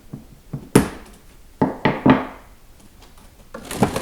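Sharp clicks and knocks of a Husky mechanics tool set's plastic storage case being handled: one loud snap about a second in, three knocks about two seconds in, and a quick run of clatter near the end.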